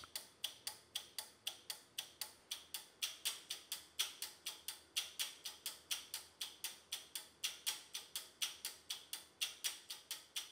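Electromechanical relays of a homebrew 8-bit relay computer clicking in a steady rhythm, about six clicks a second, as the machine runs.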